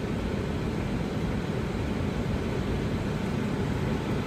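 Tesla Model Y's climate-control blower running at maximum fan speed with the AC on: a steady rush of air, strongest in the low range.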